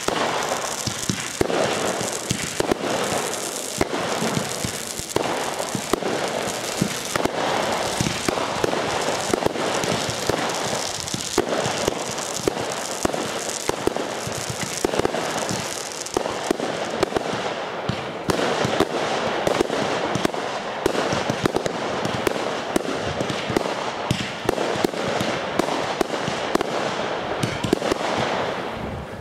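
A firework cake (battery) firing shot after shot in rapid succession, its launches and star bursts making a dense, unbroken run of pops and crackle that stops shortly before the end.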